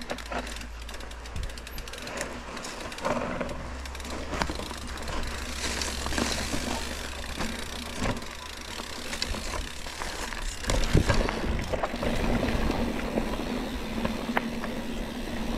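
Mountain bike riding down a dirt forest trail: knobby tyres rolling over dirt, leaves and roots, with the bike rattling and scattered sharp knocks and clicks from the frame and chain over bumps.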